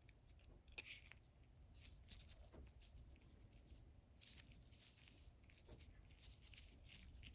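Faint scratches and light clicks of the small parts of a ratchet's pawl mechanism being handled, a few scattered strokes over near silence.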